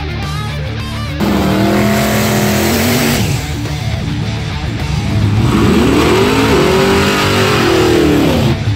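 Guitar music cuts to a drag car's engine held at high revs for about two seconds, then dropping off. A few seconds later it revs up and back down in one long swell while the car does a burnout.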